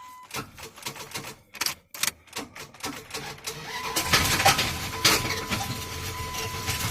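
Dodge 5.9 engine with a rod knock, freshly freed from being locked up, being cranked by its starter. A few irregular clicks come first, then about four seconds in the starter turns the engine over with a continuous, louder mechanical churn and hum.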